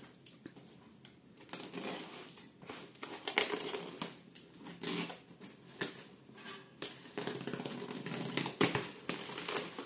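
Box cutter slitting packing tape on a cardboard box, with a run of irregular scrapes and crackles from the tape and cardboard as the box is cut and handled.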